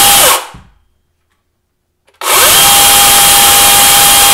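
DeWalt DCCS670X1 60V Flexvolt brushless battery chainsaw running free at full throttle, with no cut: its motor and chain whine winds down and stops about half a second in. After a pause of about two seconds it spins up again and holds a steady high whine. Pretty loud.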